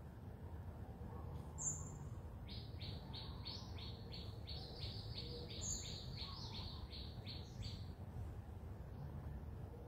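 Small birds chirping: a fast, even run of short chirps, about four a second, lasting some five seconds in the middle, with a single higher chirp a couple of times over a low steady background rumble.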